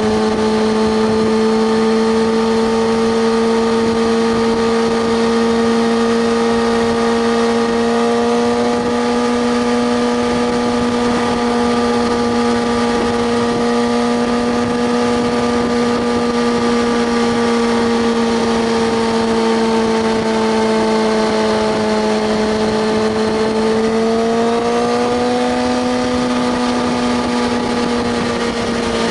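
Kawasaki ZX-6R 636's inline-four engine running at steady, fairly high revs while riding, its pitch holding almost constant, sagging slightly and then rising again about 25 seconds in, with wind and road noise underneath.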